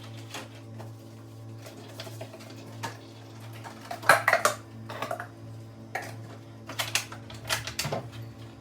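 Dishes and kitchenware clinking and clattering as they are handled, with a cluster of ringing clinks about four seconds in and more clatter near the end, over a steady low hum.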